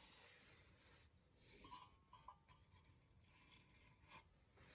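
Near silence: faint room tone with a few tiny faint clicks.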